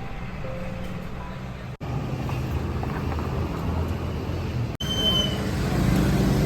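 City street traffic: vehicle engines running, in short clips that cut abruptly twice, with the engine hum louder in the last part.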